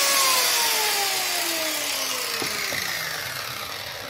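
Angle grinder spinning down after being switched off: its whine falls steadily in pitch and fades as the disc coasts to a stop. A light knock comes about two and a half seconds in.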